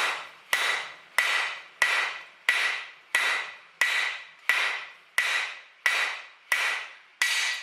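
Blacksmith's hand hammer striking hot square steel bar on an anvil while drawing out a taper: steady, evenly spaced blows about every two-thirds of a second, a dozen in all, each ringing briefly and fading before the next.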